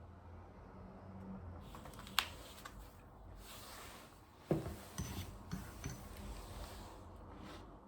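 Rustling and handling noise at a desk, like paper or hands moving over a surface, with a sharp click about two seconds in, a dull thump about halfway through and a few softer clicks after it. There is no steady run of key presses.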